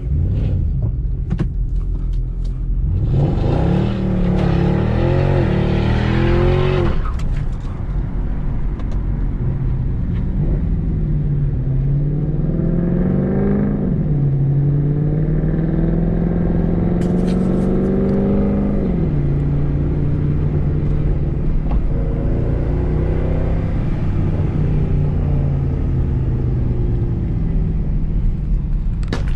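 Mercedes-Benz C63 AMG's 6.2-litre V8 heard from inside the cabin, pulling hard with its pitch rising a few seconds in, then dropping suddenly at a shift or lift-off. It pulls again around the middle, with another drop, then settles into steady highway cruising.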